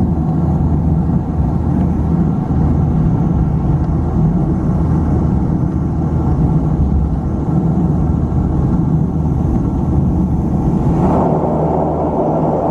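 Antonov An-24RV's Ivchenko AI-24 turboprop engines and propellers droning steadily with a deep hum, heard from inside the cabin as the aircraft rolls fast along the runway. About eleven seconds in the sound changes, filling out in the middle range.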